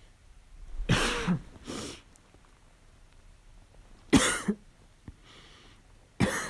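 A person coughing with a harsh, barking cough from a cold: a double cough about a second in, another about four seconds in, and a third at the end.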